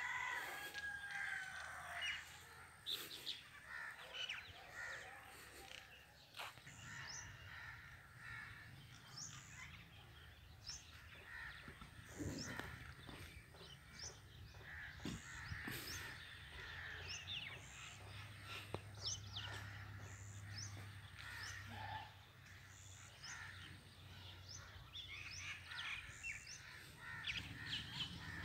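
Birds chirping and calling continually, many short chirps and quick rising and falling notes, over faint outdoor background noise.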